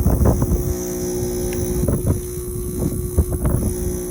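Air-conditioner condensing unit's compressor running with a loud vibrating hum and buzz, with irregular rattling knocks during the first second. The compressor sits off its rubber grommet directly on the metal washer, a mounting error, so its vibration carries into the casing.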